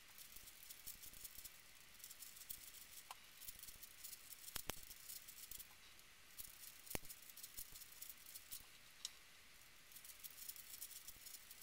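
A plastic 5x5 puzzle cube being turned by hand: faint, quick clicking and rattling of its layers in runs with short pauses, with a couple of sharper clicks.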